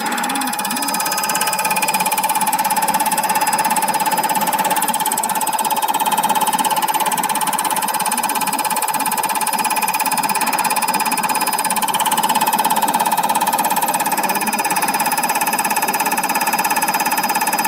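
Common rail injector test bench running a test on a Bosch 0445120343 injector: a steady whine under a rapid, even pulsing as the injector is fired over and over.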